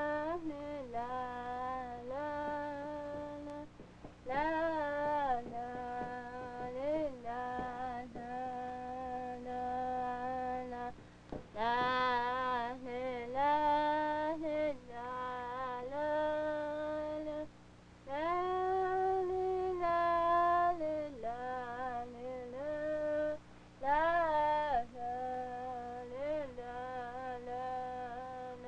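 A woman singing a slow melody alone, long held notes in phrases with short pauses between them.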